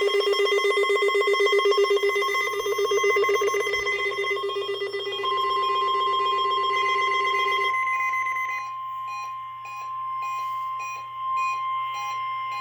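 Weather radio warning alarm test. A loud, fast-pulsing ringing alarm stops about eight seconds in. From about five seconds in it is overlapped by the steady NOAA Weather Radio 1050 Hz warning alarm tone, which carries on to the end with short, evenly spaced beeps over it.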